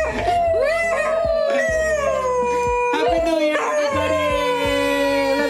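Beagle howling in long drawn-out notes that slowly fall in pitch, one howl running into the next.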